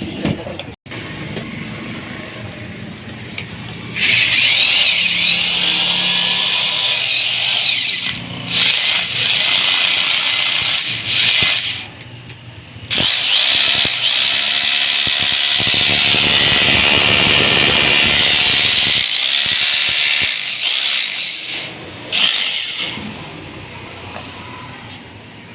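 Electric drill with a newly fitted armature test-running in several bursts: its motor starts about four seconds in, pauses briefly a few times, and cuts off near the end.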